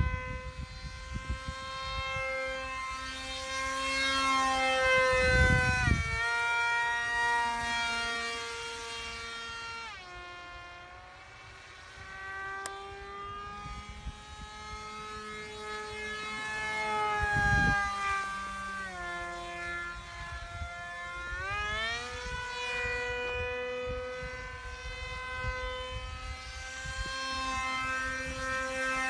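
Electric motor of a radio-controlled F-22 model plane whining, its pitch falling and rising as the throttle changes: it drops low around the middle and climbs back sharply about two-thirds of the way through. A couple of short low rumbles break in along the way.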